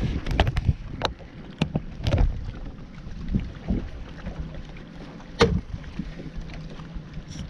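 Scattered knocks and clicks from fishing gear being handled on a bass boat's deck, the sharpest about five and a half seconds in, over wind rumbling on the microphone.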